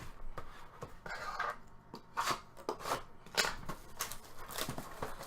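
Trading card packaging being handled and torn open: a run of irregular crinkling, rustling and tearing sounds of foil wrapper and cardboard.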